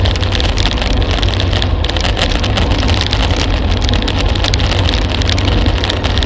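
Wind rushing over a bicycle-mounted camera's microphone at about 40 km/h: a loud, steady rush with a deep rumble, mixed with a dense crackle from the tyres on the road.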